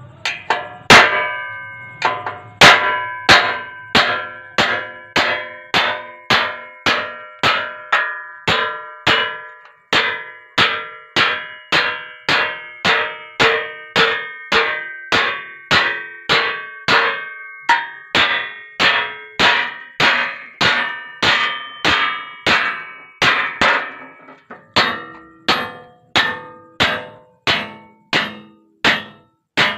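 A hammer drives a hand-held cold chisel through a steel sheet to cut it, striking in a steady rhythm of just under two blows a second. Each blow gives a ringing metallic clang.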